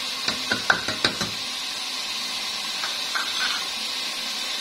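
A small glass spice bowl knocked about six times in quick succession in the first second and a half as cumin is tapped out of it into the pot, over a steady sizzle of chicken frying in oil. A few fainter clinks follow around three seconds in.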